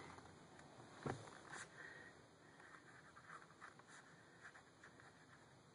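Near silence with faint small scratches and taps of a pen on a sketchbook page as a signature is written, and one soft thump about a second in.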